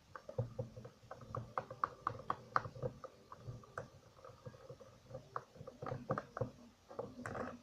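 Stirring a mixture of PVA glue and shampoo in a container: the stirrer makes irregular small clicks and taps against the container, several a second.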